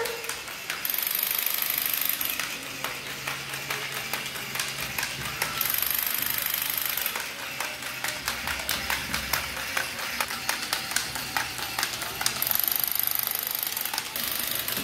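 Battery-operated crawling Spider-Man toy with a machine gun, running with a continuous rapid rattling clatter.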